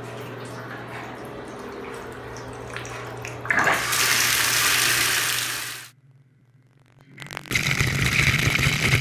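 Bathtub faucet turned on, water gushing from the spout into the tub, starting about a third of the way in over a low steady hum. It cuts off near two-thirds through, and near the end another rush of running water starts.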